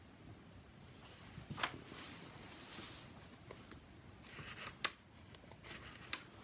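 Faint handling of a hardback picture book, its pages turned and rustling, with a few sharp clicks; the loudest comes about five seconds in.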